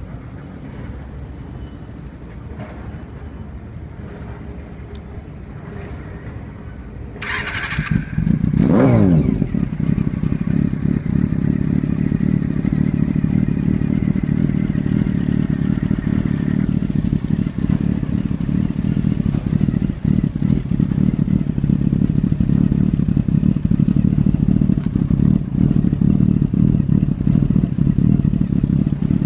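Honda CB400 Four's 399 cc inline-four, breathing through a 4-2-1 header and a stainless IWASAWA silencer. It is cranked over by the starter about seven seconds in and catches with a brief rev that falls away. It then idles steadily.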